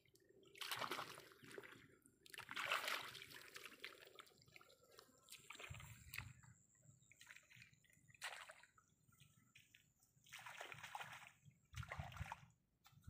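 Hands splashing and sloshing in the shallow water of a flooded rice paddy, in about six short bursts.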